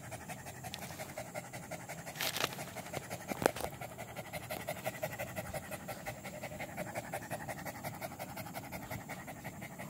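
A dog panting with its tongue out, rapid and even, after a walk with running and fetching. Two brief clicks about a second apart come a couple of seconds in.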